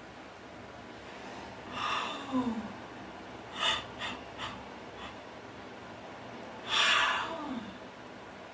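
A person yawning twice: each yawn is a loud breathy intake that trails off into a falling voiced sigh, about two seconds in and again near seven seconds. Three short breathy puffs come between the two yawns.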